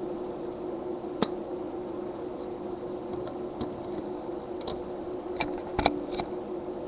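A handful of small clicks and taps from handling the plastic parts and small LCD panel of a disassembled handheld screen, the sharpest about six seconds in, over a steady low hum.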